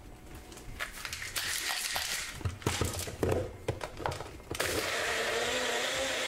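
Personal bullet-style blender: the cup of ice, mango, banana and milk knocks and clatters as it is turned over and pressed onto the motor base. About four and a half seconds in, the motor starts blending with a steady whirr, which cuts off suddenly near the end.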